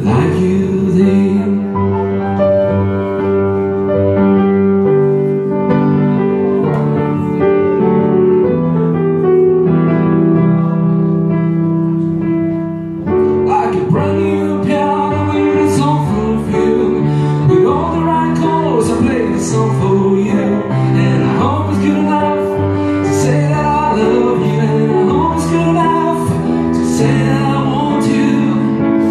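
A love song on grand piano: slow, held chords at first, then from about thirteen seconds in a man's voice sings over the piano.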